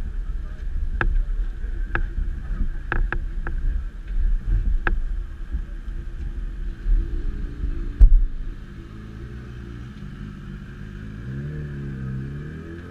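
Low, gusty rumble of wind on the microphone with a handful of sharp clicks. Then, from about eleven seconds in, a motorcycle engine revs up and down as a bike pulls away across the lot.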